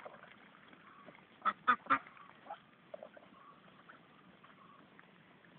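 Vigova ducks, a white Pekin-type meat breed, quacking: three loud quacks in quick succession about one and a half seconds in, then a couple of softer ones.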